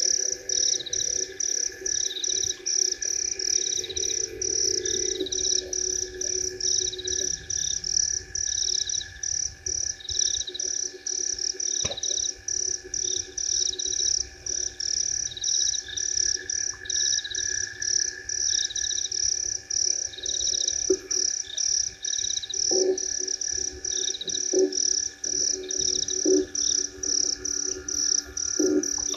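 Night chorus of frogs at a waterhole: a high-pitched call pulsing in a regular rhythm over a steady trilling background, with a few short, lower croaks in the last third.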